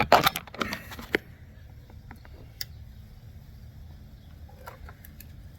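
Plastic clicking and scraping as the locking tab of the door lock switch's electrical connector is pried with fingers or a tool: a quick run of sharp clicks in the first second, then a few faint ticks.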